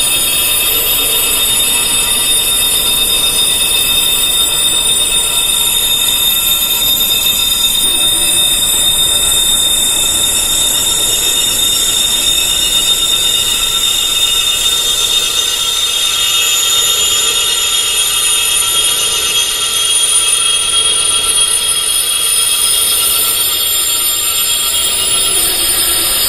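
Wind chimes tuned high to tinnitus pitches, ringing as a dense, continuous wash of many overlapping high tones with no separate strikes standing out.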